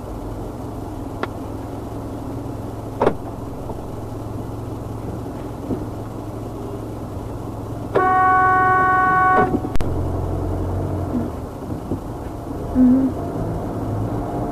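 A car horn sounded in one steady blast of about a second and a half, about eight seconds in, honking at a car ahead that is standing still on a green light. Under it runs the steady low hum of the car's cabin, with a couple of single clicks early on.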